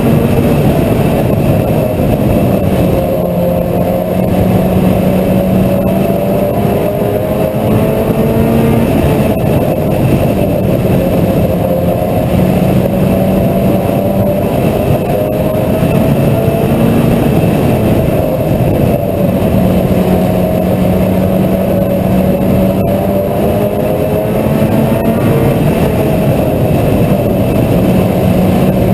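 Mini stock race car engine running hard under racing load, its pitch rising and falling in long swells every few seconds with the throttle.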